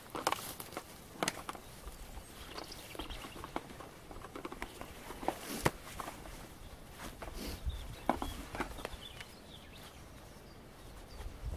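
Rustling and scattered sharp clicks of a clearing-saw harness being put on, its straps and buckles handled and adjusted, with a few steps on the dry undergrowth.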